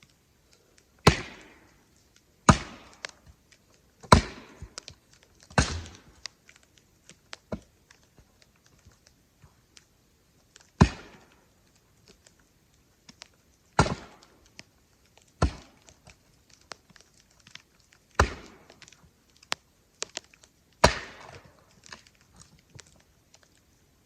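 Firewood being handled: about nine sharp wooden knocks, one every one and a half to three seconds, with a pause of several seconds in the middle.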